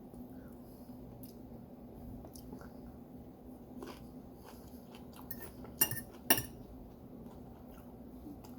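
Cutlery clinking against a plate with faint chewing between, and two sharp clinks about half a second apart a little past the middle.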